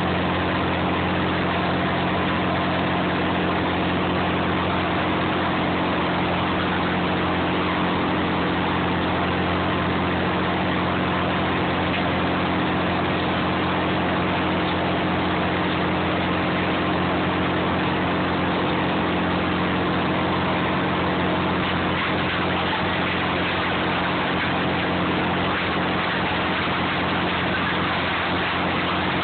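Clam boat's engine running steadily: an unbroken low drone with a constant hum, under a dense hiss that does not change.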